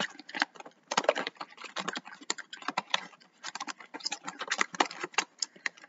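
Small toy blind packs of plastic and card being handled and shuffled in their box: a dense, irregular run of light clicks and crinkles.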